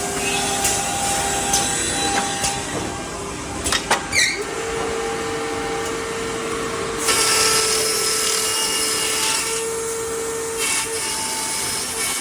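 CNC wood router running: a steady spindle whine that steps up in pitch about four seconds in, just after a few clicks, with a burst of loud cutting noise from about seven to ten and a half seconds.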